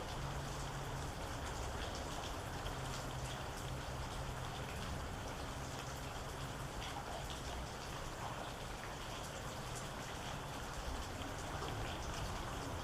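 Rain falling steadily, with scattered individual drops ticking on a hard surface.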